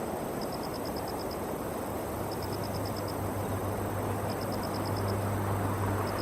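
An insect chirping in short trills of about eight quick high pulses, repeated roughly every two seconds, over a steady rushing background. A low hum grows louder from about two seconds in.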